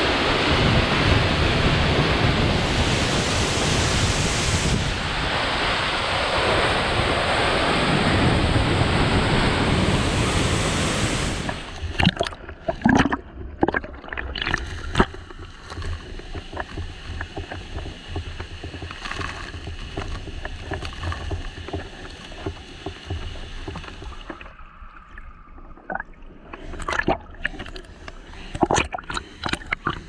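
Close, heavy roar of a waterfall's falling water for about the first eleven seconds, then it drops away abruptly. After that comes a much quieter background of flowing water with scattered sharp clicks and knocks.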